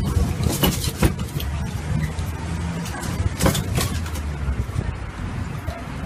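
Tourist road train's engine running with a low, steady hum as it travels slowly, heard from aboard its open carriage, with frequent short knocks and rattles from the carriage.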